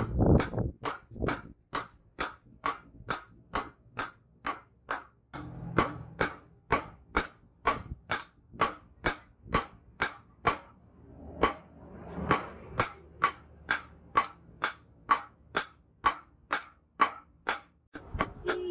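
Hand hammer forging a red-hot leaf-spring steel knife blade on a steel post anvil: sharp ringing blows at a steady two to three a second, with a short pause about ten seconds in.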